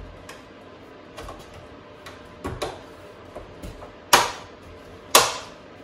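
Toyota emblem's clip tabs snapping into the grille as it is pressed into place: a few light clicks, then two sharp snaps about a second apart near the end.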